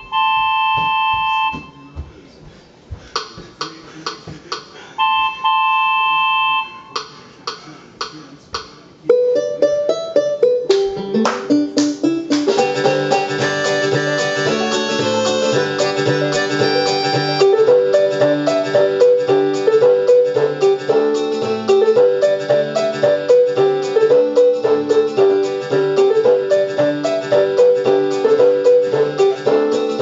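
Casio LK-175 electronic keyboard playing. It sounds a couple of held notes with short clicks between them, then from about nine seconds a full arrangement with a melody over bass and chords.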